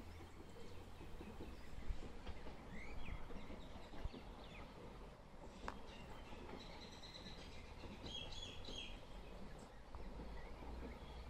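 Birds chirping in short rising calls, with a burst of faster, higher calls from about six to nine seconds in, over a steady faint low rumble.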